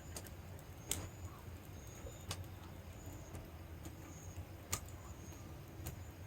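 Wood fire burning in an outdoor fire pit, with sharp irregular pops about five times over a low steady rumble.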